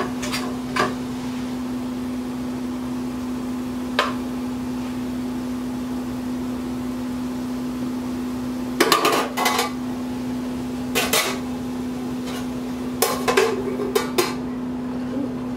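A metal spoon clinking and scraping against a stainless steel cooking pot as cooked greens are dished out, in a few short clusters of clatter. A lid is set on the pot near the end. A steady hum runs underneath.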